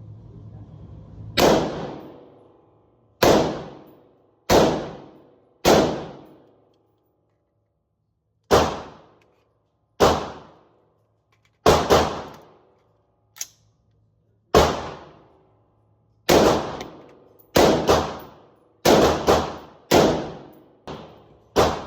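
AR-15 rifle in 5.56/.223 with a 16-inch barrel firing semi-automatic, about twenty shots at an uneven pace, some in quick doubles and triples, each shot trailing off in a short echo.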